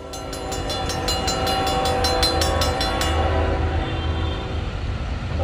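Approaching Norfolk Southern freight train led by GE diesel locomotives, its horn holding a steady chord that slowly grows louder over a low engine rumble. A grade-crossing bell dings rapidly until about three seconds in.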